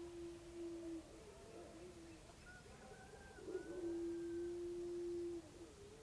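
Distant rooster crowing, once at the start and again about three and a half seconds in. Each crow opens with a few short notes and ends in a long, steady held note of about two seconds. A small songbird whistles faintly between the two crows.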